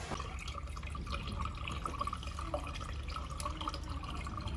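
Water trickling and dripping into the water chiller's tank just as it reaches full, in many small irregular drips and splashes over a steady low hum.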